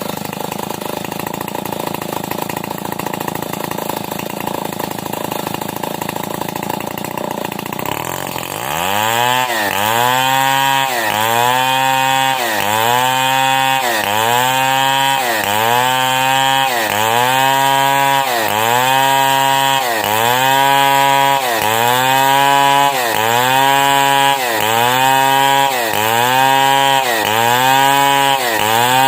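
A Stihl 070 two-stroke chainsaw rip-cutting along a log at full throttle. After about eight seconds it gets louder, and its engine note starts rising and falling in a steady cycle of roughly once a second.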